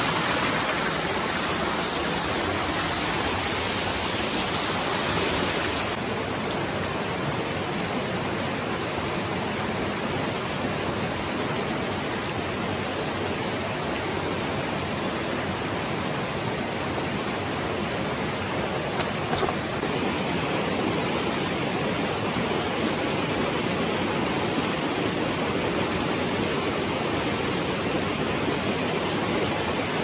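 Shallow rocky mountain stream rushing and splashing over boulders in small cascades: a steady rush of water that changes in tone abruptly about six seconds in.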